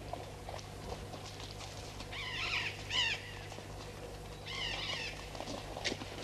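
An animal crying out in high, wavering calls, two bouts of about half a second each, over a steady low hum.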